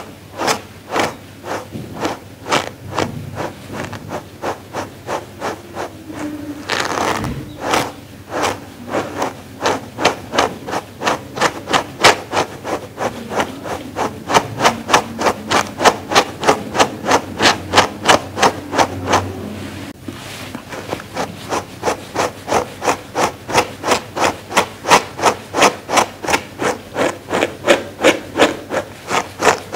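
A dog-grooming brush drawn again and again through a fluffy fur pad, making a rhythmic scratchy rubbing, about two to three strokes a second.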